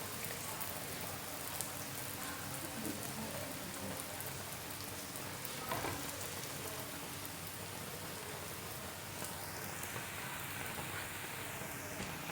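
Lachha paratha frying in ghee, a steady crackling sizzle, with a single light knock about six seconds in.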